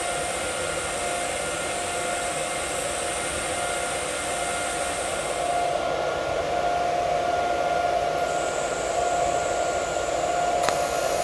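TIG welding arc hissing steadily with a steady whine. The tone shifts about halfway through, and there is one sharp click near the end.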